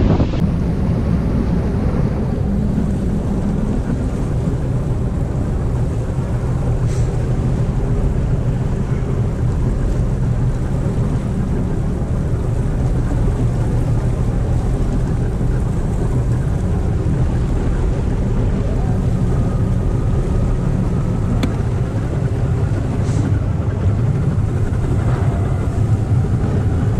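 An engine running steadily under way, with wind buffeting the microphone.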